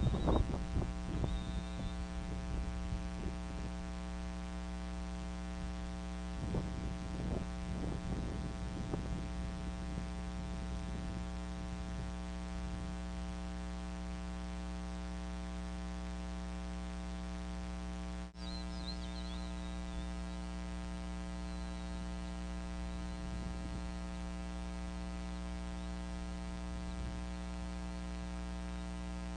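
Steady electrical mains hum with a buzz of overtones on the nest camera's audio. Over it, an eaglet's wing-flapping and rustling of nest sticks come in the first second or so, with more rustling scuffs around seven seconds in. The sound drops out briefly about eighteen seconds in.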